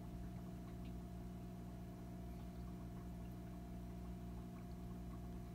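Steady low background hum, with a few faint small ticks scattered through it.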